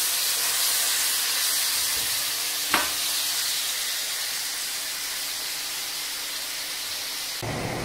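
Chopped tomatoes sizzling in hot mustard oil in a kadai, a steady frying hiss as their juice cooks off, slowly fading. A single sharp tap about three seconds in.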